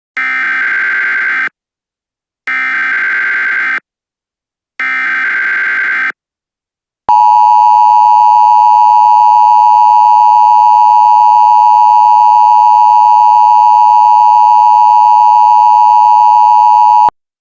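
Emergency Alert System alert tones: three short bursts of rapid SAME header data tones about a second apart, then the EAS two-tone attention signal, a loud steady dual tone lasting about ten seconds that cuts off abruptly.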